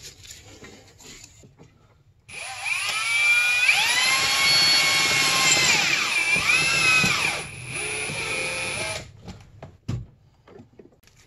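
A small electric motor whines up in pitch about two seconds in, runs steadily, slows and briefly speeds up again, then runs lower before stopping about nine seconds in.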